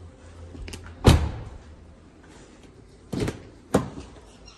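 The rear door of a BMW 520d is shut with one loud thump about a second in, then the front door is unlatched and opened with two sharp clacks a little over three seconds in.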